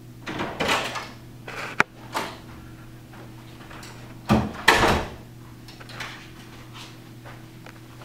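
A door closing with two heavy thumps about four and a half seconds in, after a few lighter knocks and footsteps, over a steady low hum in the room.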